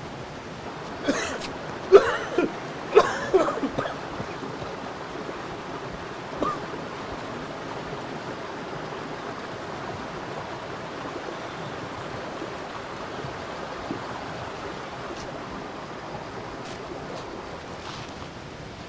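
Steady rushing outdoor ambience with no clear pitch. A handful of short, sharp sounds come between about one and four seconds in, and one more at about six and a half seconds.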